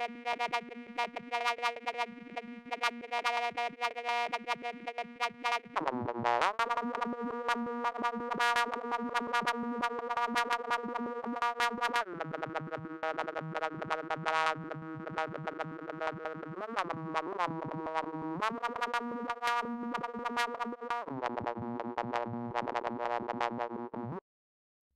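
Synthesized sci-fi "extraterrestrial interference" sound effect: a buzzy electronic drone crackling with rapid clicks. It jumps to a new pitch every few seconds with a short swoop at each change, then cuts off suddenly near the end.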